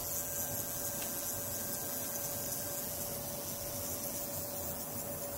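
Car fuel injector on a test bench buzzing faintly and steadily as a function generator pulses its coil with a sine wave at around 150–190 times a second, over a steady hiss. On 5 volts it is near the rate at which it almost stops opening and closing.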